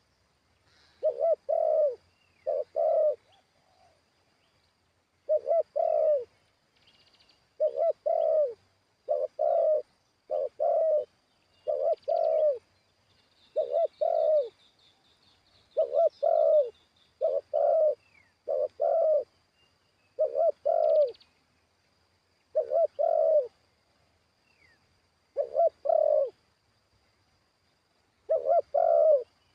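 Spotted dove cooing: short phrases of two or three low notes, repeated every second or two, with a few longer pauses. Faint high chirping of other small birds runs behind it.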